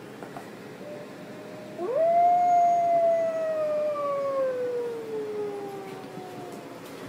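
Recorded wolf howl played through an iPad's speaker: one long howl that swoops up about two seconds in, then slowly falls in pitch and fades over about five seconds.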